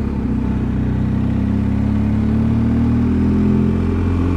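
BMW R1250 motorcycle's boxer twin engine running at low town speed, its pitch rising gently partway through as the bike accelerates, then holding steady.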